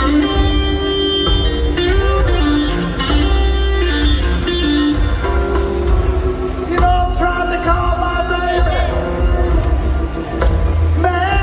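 Live electric blues band playing loud: electric guitar lines over bass and drums, with a singing voice coming in about halfway through.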